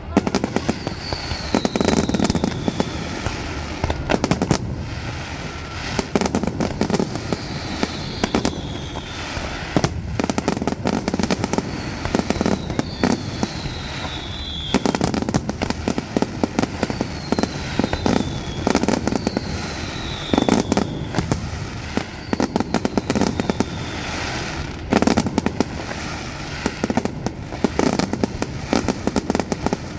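Fireworks display: rapid bursts of bangs and crackling every few seconds, with about six short whistles that fall in pitch.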